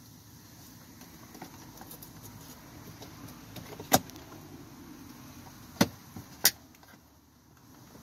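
Three sharp plastic clicks or knocks as a hand works the interior door panel and pull handle of a BMW 5 Series door: one about four seconds in, then two close together near six seconds, over a faint low hum.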